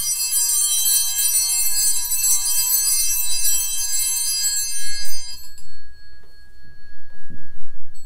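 Altar bells rung at the elevation of the consecrated host, many high tones ringing together and dying away about five and a half seconds in, with one tone lingering faintly.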